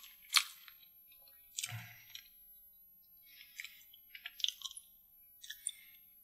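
Close-miked wet clicks and soft sticky crackles: a sharp mouth click near the start, then, in three short clusters, fingers picking a sauce-coated deviled prawn off the plate.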